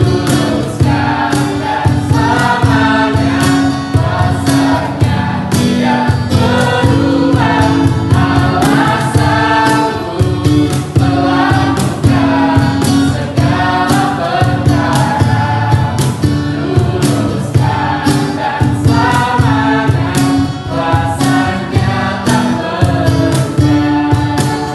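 A small mixed group of voices singing an Indonesian worship song, accompanied by acoustic guitar and a cajón keeping a steady beat.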